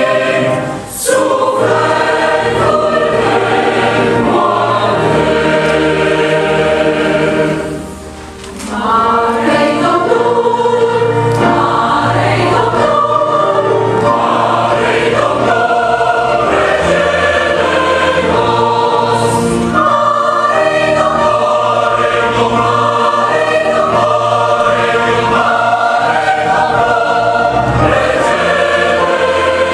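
Mixed church choir of men and women singing a hymn in full harmony, with two short breaks between phrases, about a second in and around eight seconds in.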